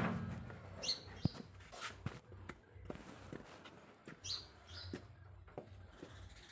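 A few short, faint bird chirps, with scattered light clicks and knocks as a corrugated sheet-metal gate is swung open.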